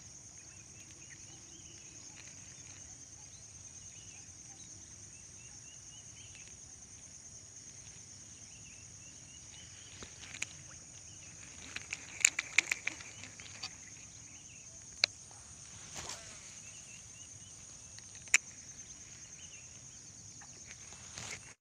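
Steady high-pitched drone of an insect chorus with scattered bird chirps. A few sharp clicks and knocks fall over it, a cluster of them about 12 to 13 seconds in.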